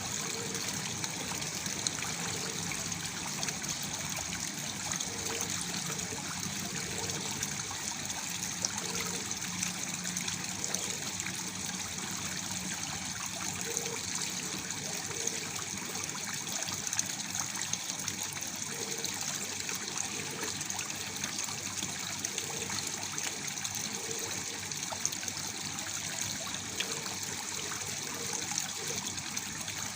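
Waterfall running steadily: an even, continuous splashing hiss of falling water.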